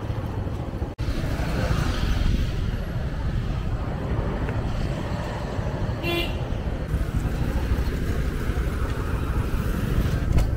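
Road traffic with a steady low rumble, and a short horn toot about six seconds in.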